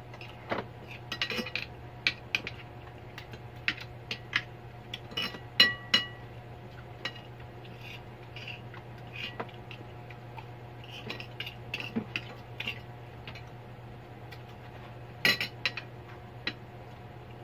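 Spoons and forks clinking and scraping against dinner plates as two people eat, in scattered light taps. One clink about six seconds in rings briefly, and there is a quick run of clinks near the end.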